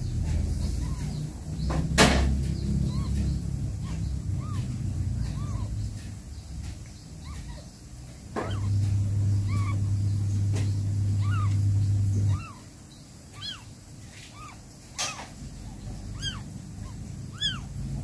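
Newborn kitten squeaking in short, high, thin cries, over and over, more often near the end. Two sharp knocks come about two seconds in and again near the end, over a low steady hum.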